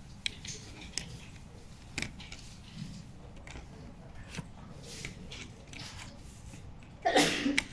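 Small handling sounds: a few faint clicks and taps, then a louder burst of noise lasting about half a second near the end.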